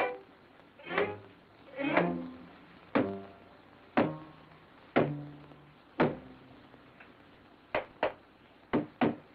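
Sparse cartoon underscore of single low struck notes, one about every second, each fading quickly, then four short sharp knocks close together near the end.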